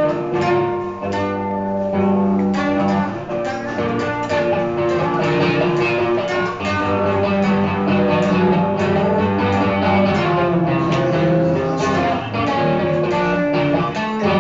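Instrumental guitar music with strummed chords, the song's closing outro with no vocals.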